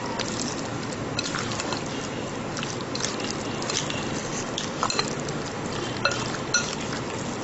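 A spoon stirring fish pieces through a thick, wet spice marinade in a glass bowl: wet squelching with many light clicks of the spoon against the glass.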